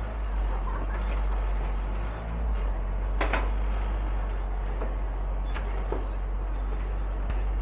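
Steady low rumble of street traffic with an engine running close by, with a few sharp clicks, the loudest about three seconds in.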